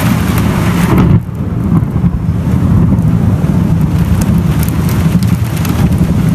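Thunderstorm: heavy rain hissing over a continuous low rumble. The rain's hiss thins out about a second in, while the rumble carries on.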